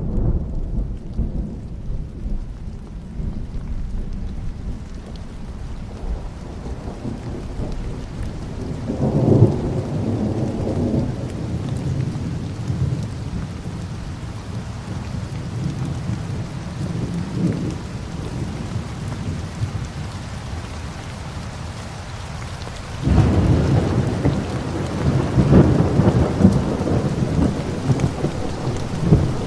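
Steady rain falling, with rolling thunder. A low rumble swells about a third of the way in, and a longer, louder rumble begins about three quarters of the way through.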